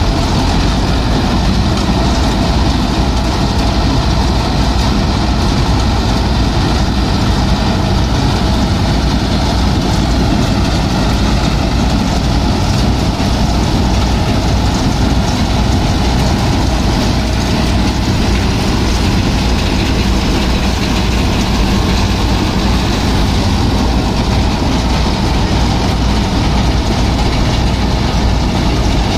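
Mahindra Arjun Novo 655 DI tractor's four-cylinder diesel engine running steadily under load, driving a tractor-mounted paddy harvester as it cuts rice, with the harvester's machinery running along with it.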